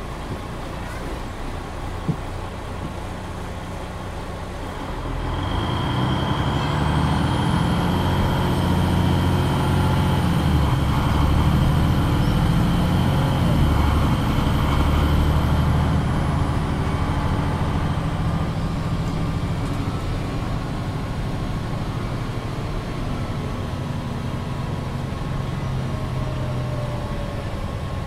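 MAN NG 313 articulated city bus heard from on board: its diesel engine runs steadily, then pulls harder and grows louder about five seconds in, staying under load. A steady high whine comes in alongside, and a faint very high whistle rises and later falls away.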